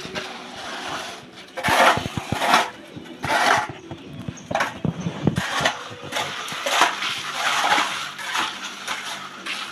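Metal hand tools, a shovel and trowels, scraping and slapping through wet concrete in repeated short strokes, with a few knocks.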